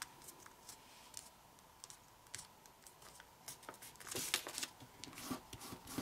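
Thin origami paper (kami) being folded and creased by hand: faint crinkles and small taps, becoming louder and busier about four seconds in.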